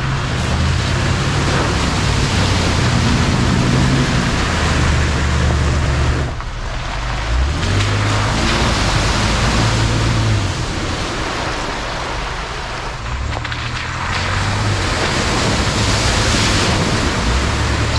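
A four-wheel drive pushing through a deep water hole. The engine revs rise and fall under load against a continuous rush of splashing water, easing briefly about six seconds in.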